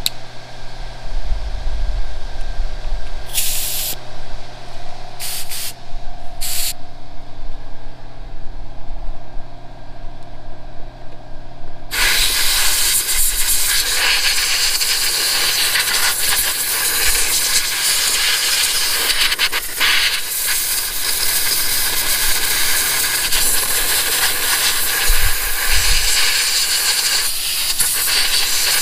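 Compressed air hissing from an air blow gun: a few short blasts in the first several seconds, then a long steady blast from about twelve seconds in, blowing debris out of the mower's air-filter housing.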